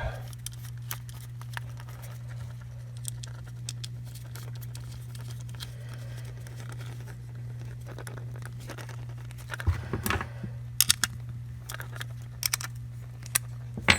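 Scattered light metallic clicks and taps of small M4 flange nuts being fitted and run onto mounting bolts, clustering about ten seconds in, over a steady low hum.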